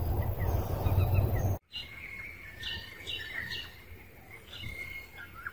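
A low rumbling noise like wind on the microphone, with faint chirps over it, stops abruptly about a second and a half in. After that, birds chirp in a series of short calls over quieter outdoor background.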